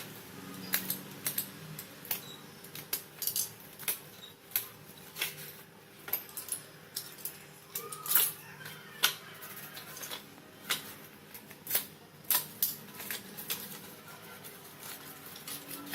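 Slate pencils clicking and cracking: an irregular run of sharp clicks, at times several a second, over a faint steady hum.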